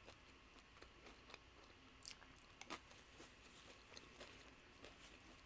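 Faint chewing of nacho chips: scattered soft crunches and mouth clicks at an irregular pace, the most distinct ones about two to three seconds in.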